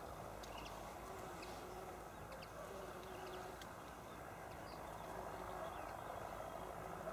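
Quiet open-country ambience: a faint, steady low background noise with scattered short bird chirps.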